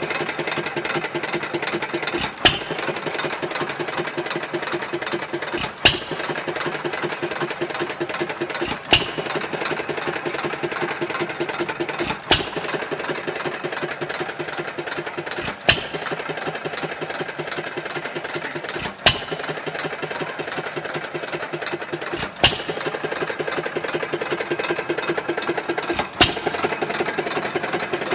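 1919 Jaeger hit-and-miss engine running while driving two ice cream freezers by belt: one sharp firing bang about every three and a half seconds. Between the bangs there is a steady, fast, rhythmic mechanical clatter as the engine coasts on its flywheels without firing.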